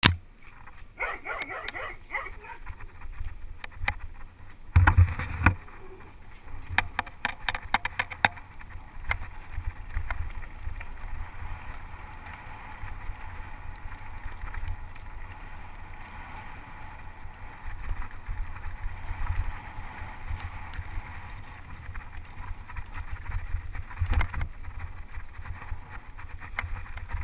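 Mountain bike riding on a dirt track: low wind rumble on the microphone and tyre noise, with a run of sharp rattling clicks from about five to eight seconds in.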